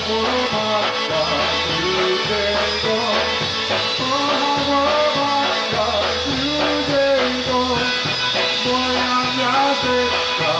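Live polka band playing a polka, melody lines over a steady bass beat.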